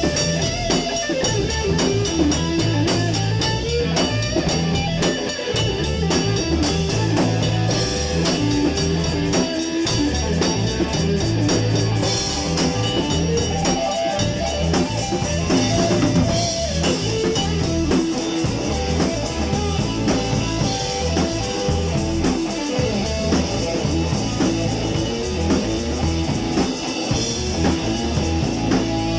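Rock music with guitar and a drum kit playing steadily.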